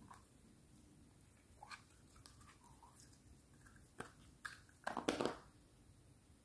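Hands squeezing and pulling thick slime out of a plastic tub: faint sticky squelches and crackles, with a louder squelch about five seconds in.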